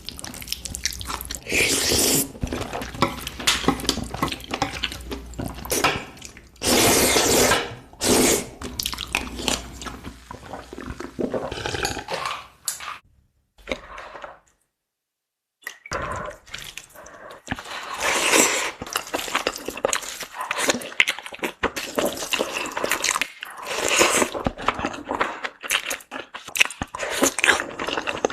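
Close-miked eating sounds: wet chewing, smacking and slurping in quick irregular bursts, with a short break of silence about halfway through.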